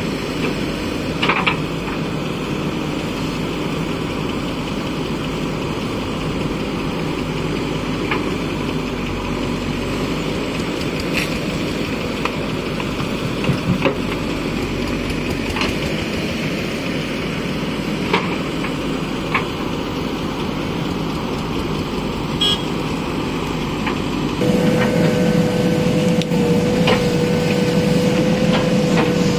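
JCB 3DX backhoe loader's diesel engine running steadily while the rear bucket digs and dumps mud, with a few short sharp knocks along the way. About five seconds before the end the engine turns louder from beside the boom at the cab, and a steady high whine joins it.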